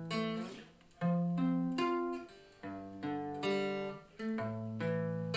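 Cigar box guitar and ukulele playing an instrumental intro: a new chord is struck about once a second and rings out, fading before the next.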